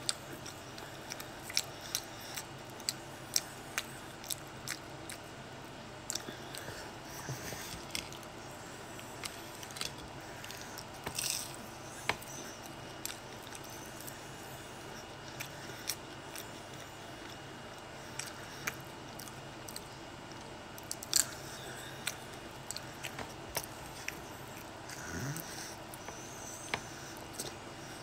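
Close-up mouth sounds of a person chewing a tortilla-wrapped cheeseburger-and-fries sandwich: irregular small clicks and smacks as she chews and bites.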